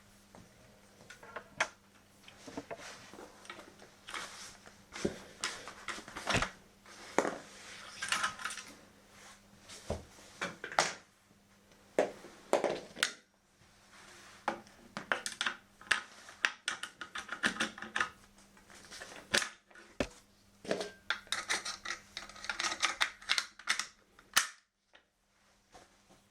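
Irregular clicks, taps and rattles of small hard parts and tools being handled, as rifle cleaning gear and parts are worked with and set down, over a faint steady hum.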